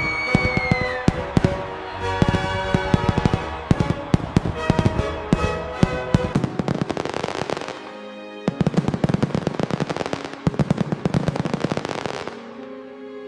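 Fireworks finale: rapid bangs and crackles over background music. The bangs thin out after about eight seconds and stop near the end, leaving only the music.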